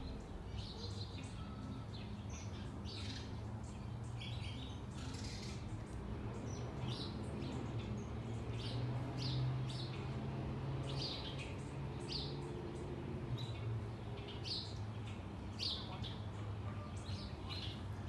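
Small backyard songbirds chirping, many short high chirps one after another, over a low steady hum.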